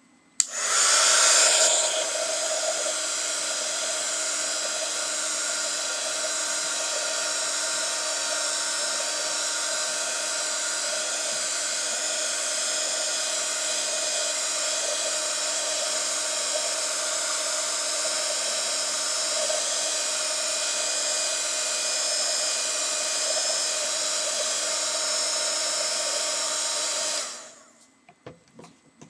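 Handheld embossing heat tool switched on and blowing steadily, with a faint motor whine, heating a Magic Stamp (Penscore) foam block to soften it. It is louder for the first second or so after it starts and cuts off sharply near the end.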